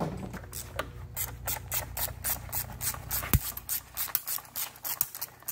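A hose clamp on a charge-air hose being loosened with a hand screwdriver: a steady run of short, sharp clicks, about three a second, with one louder snap a little past the middle.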